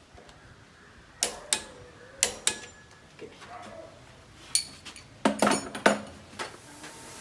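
A series of sharp metallic clinks and knocks, about ten in irregular groups, each with a short ring: tools or metal fittings being handled and set down during an air-conditioner installation.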